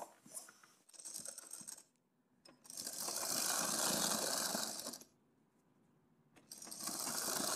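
Sewing machine stitching a seam through satin and net fabric in two runs: one of about two and a half seconds starting near the three-second mark, and a second that starts about a second and a half after it stops and is still going at the end. Light handling noise of the fabric being arranged comes first.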